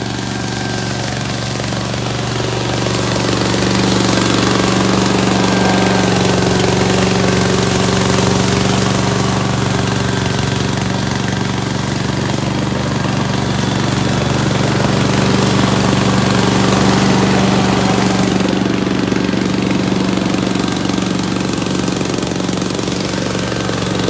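Remote-control tracked lawn mower's engine running steadily as it mows a slope, growing a little louder about three seconds in.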